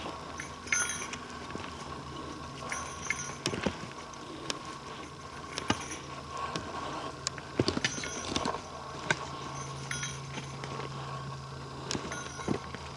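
Footsteps picking over forest-floor debris: irregular cracks and crunches of twigs and leaf litter underfoot, with a light metallic jingle in a few of the steps.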